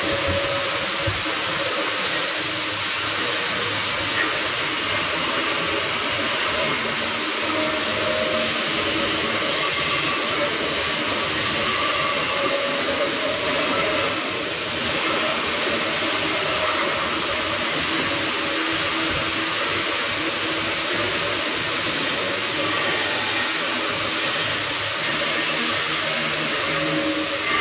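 Steady, loud hiss and crackle of arc welding on steel.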